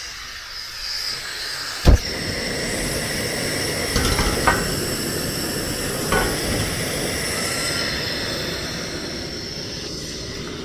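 Steady hissing sizzle from a pot over the cooking fire, with a sharp knock about two seconds in and a few lighter knocks around four and six seconds.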